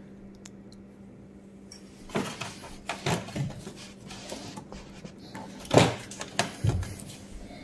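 Handling noise from a Kawasaki Mule 600 access cover being worked loose by hand: scattered knocks and scrapes as it is lifted against a rubber hose and the frame. These start about two seconds in, with the loudest knock near the end.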